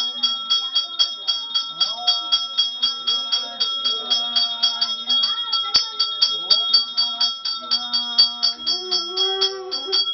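Puja bell rung rapidly and evenly, about five strikes a second, its bright ringing tones held throughout. Voices chant or sing in long held notes beneath it.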